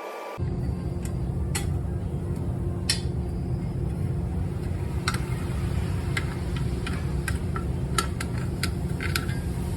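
Steady low road rumble heard inside a moving car's cabin, with scattered light clicks or ticks through it, starting suddenly about half a second in.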